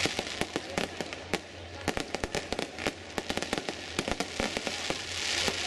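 Fireworks display: many sharp pops and crackles of aerial shells bursting in quick, irregular succession, with a hiss near the end.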